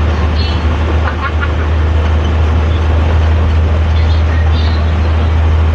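Hino AK3-HR bus engine and exhaust running at a steady low drone, heard from inside the cabin at the back.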